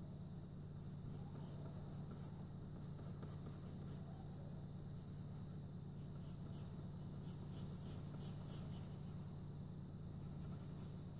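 Graphite pencil sketching lightly on paper: irregular soft scratching strokes, over a steady low electrical hum.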